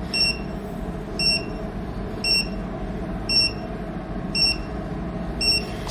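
Medical laser machine's emission beep in pulse mode: six short high beeps about a second apart, each marking a 0.3-second laser pulse followed by a 0.6-second pause, over a low steady hum.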